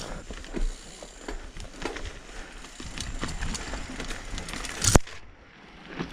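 Mountain bike rolling down a rough dirt trail: tyres scrubbing over dirt and roots while the bike rattles with many small clicks, then a single loud knock about five seconds in.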